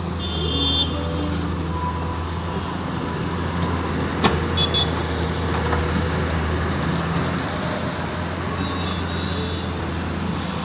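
A heavy engine running steadily with a low drone, with a sharp click about four seconds in and a few brief higher tones.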